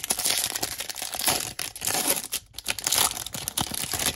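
The wrapper of a 2022 Topps Baseball card pack being torn open and crinkled by hand: a dense, irregular crackling that stops abruptly at the end.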